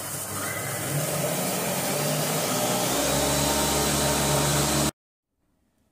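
Silvercrest Monsieur Cuisine Connect food processor's motor spinning its blade up through its speeds and milling granulated sugar into powdered sugar, a loud steady whir that cuts off suddenly about five seconds in.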